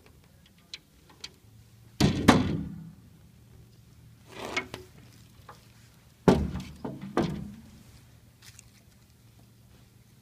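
Hard resin chair parts knocking and thudding together as a Chiavari chair is assembled. There are two loud thuds, about two seconds in and again past six seconds, with lighter knocks and a few small clicks between.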